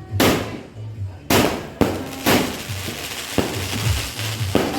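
Large-calibre fireworks cake firing, a string of sharp bangs about every half second to a second, with a hissing crackle after some of the breaks. Background music plays underneath.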